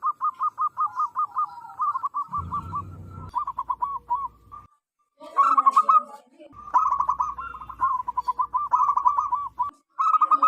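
Zebra doves cooing: quick runs of short, arched, whistled notes, several a second, broken by brief pauses and overlapping at times. There is a sudden moment of silence about five seconds in, and a brief low rumble a couple of seconds in.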